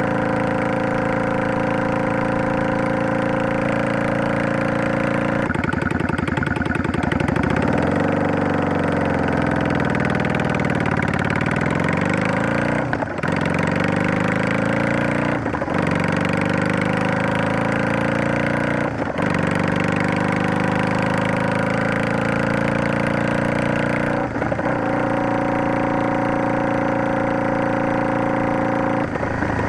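Yamaha DragStar 400's V-twin engine running through a Garage T&F Vent Muffler Type 2 with Luxury inner silencer as the bike is ridden. The note holds steady at first, then the pitch dips and climbs back up, broken three times by brief gear changes in the middle, and settles to a steady cruise near the end.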